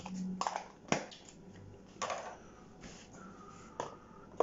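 Light knocks and clicks of small kitchen items, a glass and a small dish, being set down and moved on a countertop: about half a dozen separate sharp taps, the loudest about a second in.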